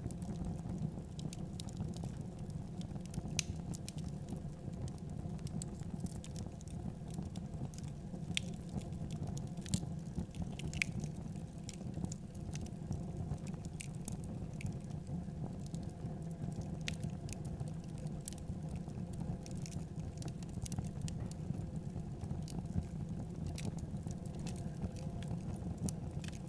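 Fire in a clay stove burning with a steady low rumble and scattered sharp crackles.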